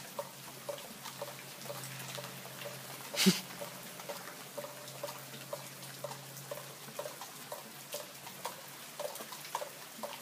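Water dripping in scattered small ticks and plinks over a steady low hum, with one short, sharp loud crack about three seconds in.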